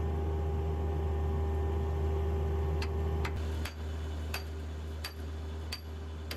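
Sharp hammer blows on steel, about one every 0.7 seconds starting about halfway in, over a steady low hum.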